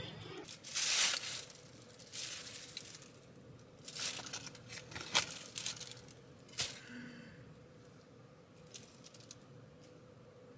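Aluminium foil and a thin plastic bag crinkling and rustling in irregular bursts as the foil wrapping is pulled open and a skewer is drawn out of the bag; the loudest crinkle comes about a second in, and it dies down after about seven seconds.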